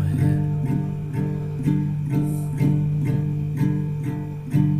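Background guitar music: a slow, repeating plucked guitar pattern of about two strokes a second over sustained low notes.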